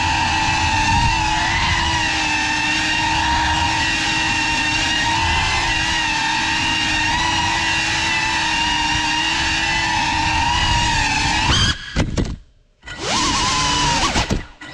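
Geprc Cinelog35 cinewhoop's brushless motors and ducted propellers whining steadily in flight. About 12 s in the whine cuts out suddenly as the throttle drops, then comes back with rising whines as the motors spin up again, and dips out once more briefly near the end.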